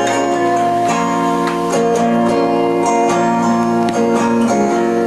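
Acoustic guitar being strummed, chords ringing and changing every second or so.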